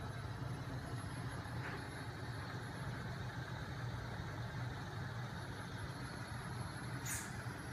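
Homemade magnet-and-flywheel machine, driven by a small 12 V electric motor, running: a steady low mechanical hum from the spinning flywheel and wheels, with a couple of short faint ticks, the clearest near the end.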